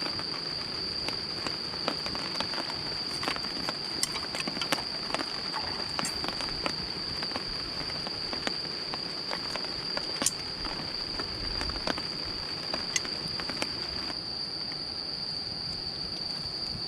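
Light rain starting to fall, with scattered drops ticking sharply and irregularly, over a steady high-pitched insect trill.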